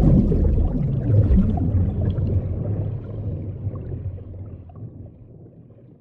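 Low rumbling water-and-wind noise of a stormy sea, fading steadily until it is faint near the end.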